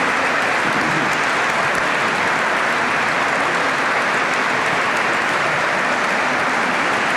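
Audience applauding, a dense, steady clapping that holds at one level throughout.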